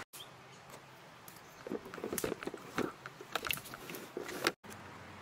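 A run of irregular light clicks and taps over a low steady background, starting about a second and a half in and stopping abruptly near the end.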